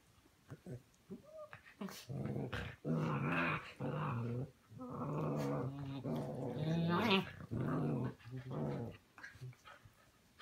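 Shepherd puppies growling at each other in play-fighting: a run of low, drawn-out growls from about two seconds in, after a couple of seconds of faint scuffling clicks.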